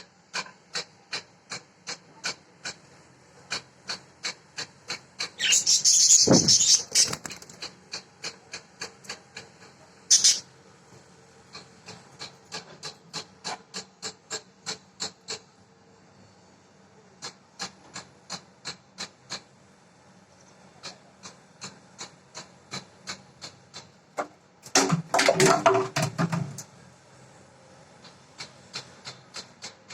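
Pet budgies making runs of sharp, regular clicks, two or three a second, with louder scratchy bursts lasting a second or two about six seconds in and again near twenty-five seconds.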